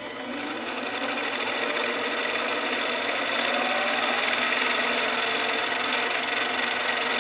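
Mini lathe starting up and then running steadily, its motor and spindle whirring, as a cloth is pressed against a turning steel bar to polish it to a shine.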